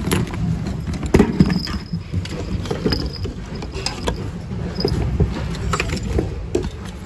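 Hands rummaging through a bin of mixed thrift goods: irregular knocks and clatter of objects being shifted, with fabric rustling, over a low rumble of handling noise.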